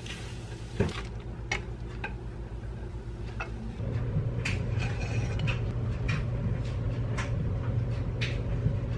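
Cookware clatter: a spatula scraping and tapping in a frying pan of scrambled eggs, then a pan and plate knocking lightly as tortillas are slid out and filled. The scattered sharp clicks sit over a steady low hum that gets louder about four seconds in.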